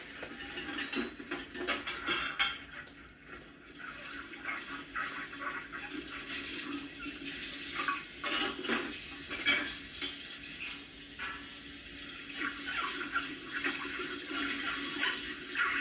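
Washing dishes by hand at a sink: water splashing and running, with frequent clinks and clatters of dishes, pots and pans being handled.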